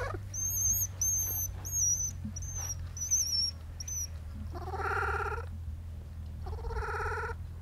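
Baby vervet monkeys screaming. There is a quick run of about six short, very high-pitched squeals, then two longer, lower, wavering screams in the second half.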